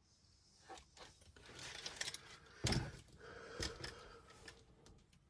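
Clicks and light rattling from an RC crawler being pressed down by hand on its coil-spring shocks and let bounce back, with two dull thumps about midway.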